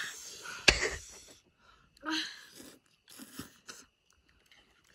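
Someone eating ramen noodles with chopsticks: a few short slurping and chewing sounds, with a sharp knock about a second in.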